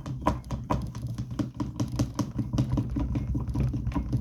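Epoxy resin being stirred fast in a mixing cup, the stir stick clicking against the cup's sides about four or five times a second.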